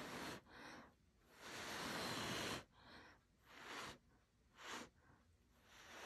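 A person blowing by mouth across wet fluid acrylic paint on a canvas in a series of breathy puffs, with one longer blow of over a second near the middle.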